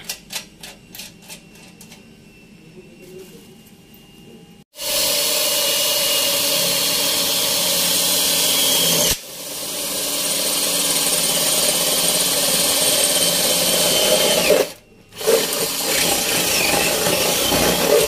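Cordless drill boring through galvanized steel trunking sheet. It runs in three spells: the first starts about five seconds in and stops briefly near the middle. The drill then winds up again, pauses for a moment about fifteen seconds in, and runs once more. A few light clicks of handling come first.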